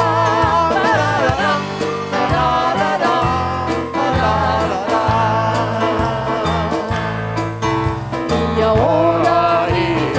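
A worship song: voices singing a melody over a band with bass notes on a steady beat.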